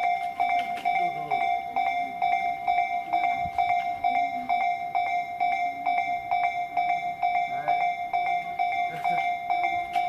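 Japanese level crossing warning bell ringing: an electronic clanging tone repeated rapidly and evenly, the signal that a train is approaching the crossing.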